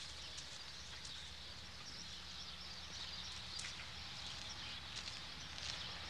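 Faint outdoor ambience: a steady high hiss over a low hum, with a few soft scattered ticks.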